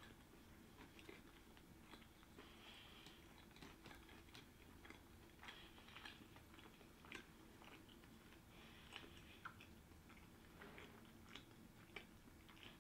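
Faint chewing of sushi: soft, irregular wet mouth clicks and smacks.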